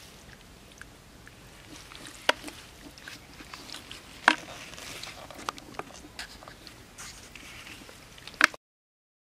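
Hands digging in wet mud: a low squelching with a few sharp wet pops and sucks as the mud is pulled apart, then the sound cuts off abruptly near the end.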